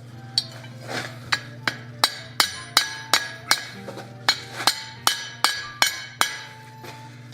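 Light hand-hammer blows on cold steel, about three a second, each ringing briefly: detail being struck into a small cold forged figure.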